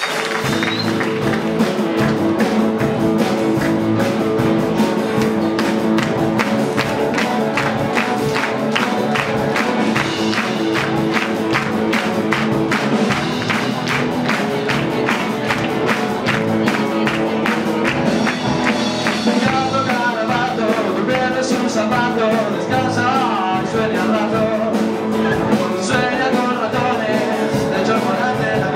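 Rock band playing live on drum kit, electric guitars, bass and keyboard, with a steady beat; a sung vocal line comes in about two-thirds of the way through.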